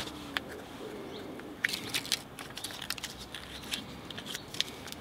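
Close handling sounds of hands working a carp rig: scattered small clicks and crinkles over a faint steady background as putty is added to the hook link.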